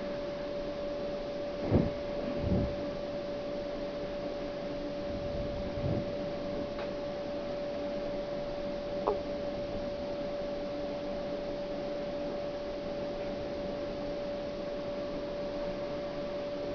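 Steady electrical hum on one constant mid pitch, with a few faint, brief soft knocks about two and six seconds in.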